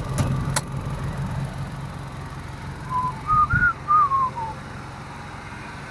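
Hood-release lever pulled with two sharp clicks, over the steady idle of a 1994 Geo Metro's Suzuki G10 1.0 L three-cylinder engine. About three seconds in, a short whistled phrase of about six notes rises then falls, louder than the engine.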